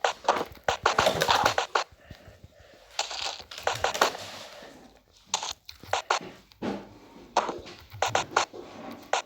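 Fidget toys being handled: quick, uneven clicks and soft pops with patches of scratchy, crinkly rustling.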